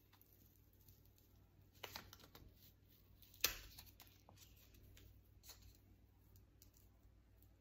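Paper template being pulled and torn away from a pinned epaulette: faint rustling and small clicks of handling, with a sharp click about three and a half seconds in and a smaller burst of clicks near two seconds.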